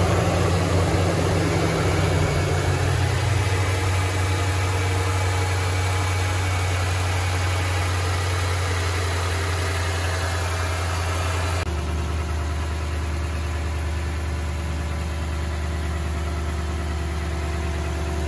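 Toyota Tundra's 5.7-litre V8 idling shortly after a cold start, with a K&N air filter fitted. The idle steps down a little about three seconds in as it settles, and the tone changes abruptly about twelve seconds in. It runs nice and quiet.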